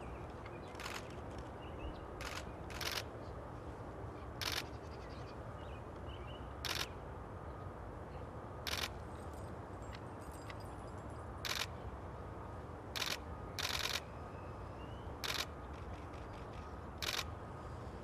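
Camera shutter clicks, about a dozen of them, single or in quick pairs of two or three, spread every second or two over a steady low outdoor background noise.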